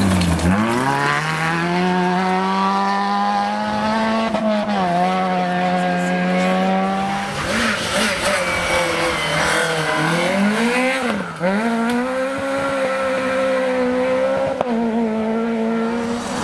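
Small rally cars at full throttle on a gravel stage, a Suzuki Swift and then Peugeot 208s: engines revving high and climbing through the gears. The pitch drops sharply as a car passes right at the start and again about eleven seconds in.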